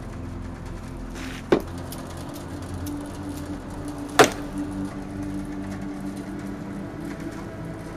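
Soft background music with sustained low notes, broken by two sharp clicks, one about one and a half seconds in and a louder one about four seconds in.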